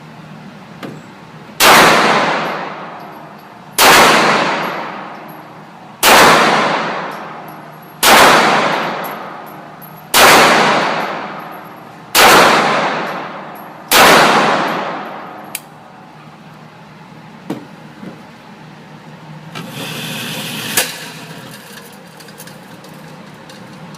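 Tanfoglio Witness Match 9mm pistol fired seven times at an even pace, about two seconds apart, each shot followed by a long echoing decay. Afterwards come a few light clicks and a brief rustle with a sharper click.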